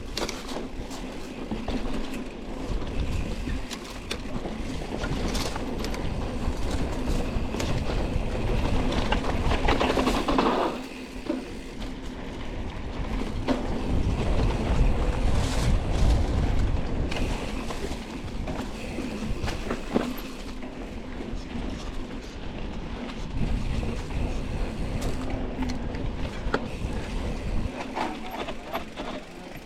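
Mountain bike riding over a rough dirt trail: a steady rush of tyre and wind noise with irregular clicks and clatter from the bike rattling over the ground.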